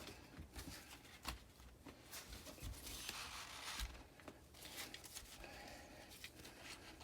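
Faint handling sounds of seat belt webbing and tape: soft rustling with a few light clicks.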